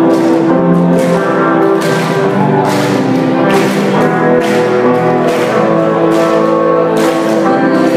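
Live pop-rock band playing an instrumental passage through the hall's PA, sustained chords over a beat about once a second, heard from within the crowd.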